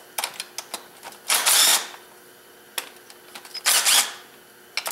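Cordless power driver running valve cover bolts out on a 3.8 L V6, in two short bursts of about half a second each, some two seconds apart. Small metallic clicks and taps come between the bursts.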